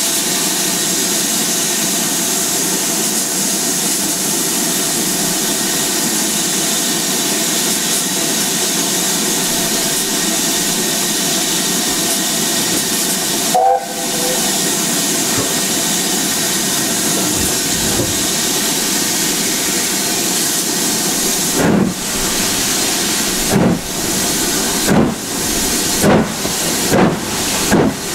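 Steam locomotive, BR Standard Class 7 'Britannia' Pacific 70013, hissing steam steadily while standing, then giving a brief whistle. About eight seconds later its exhaust beats begin, slow at first and quickening as it starts away.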